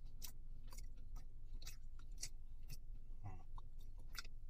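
Close-up chewing of a mouthful of breaded fried chicken tender: irregular soft crunches and wet mouth clicks, about two or three a second.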